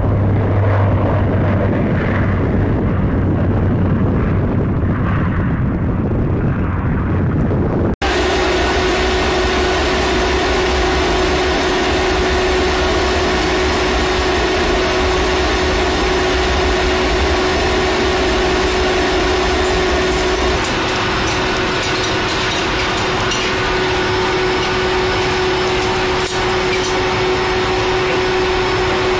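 Lockheed C-130J Super Hercules four-engine turboprop running, heard from outside as a low propeller drone while it lifts off over the runway. About eight seconds in it cuts to the loud, steady engine roar inside the aircraft's cargo hold, with a constant hum above it.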